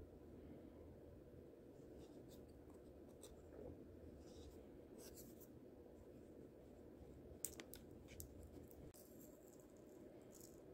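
Faint scratching and rubbing of a wooden craft stick stirring two-part epoxy on a sheet of paper, in short irregular strokes with a couple of sharper ticks about seven and a half seconds in. Near the end, clay kitty-litter granules begin to trickle onto it.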